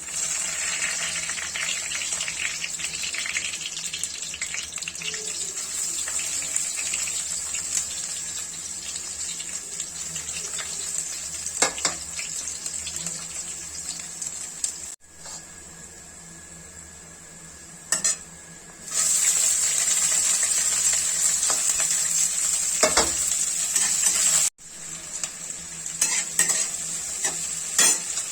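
Food frying and sizzling in oil in a pan while being stirred, with occasional clacks of a spoon against the pan. The sizzle drops for a few seconds partway through, then comes back louder.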